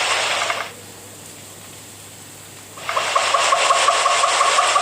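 Steady hiss of heavy rain in rainforest that cuts off under a second in; after a quieter stretch, a loud, rapidly pulsing buzz with a steady high tone starts about three seconds in.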